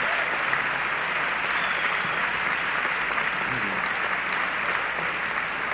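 Concert audience applauding steadily at the end of a song on a live recording.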